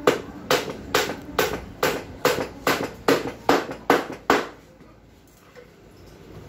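Hammer blows on a wooden plank, a steady run of about two and a half strikes a second with a short ring after each, stopping about four and a half seconds in.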